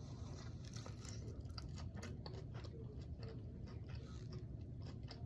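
A person chewing a mouthful of salad, faint irregular crunches and mouth clicks.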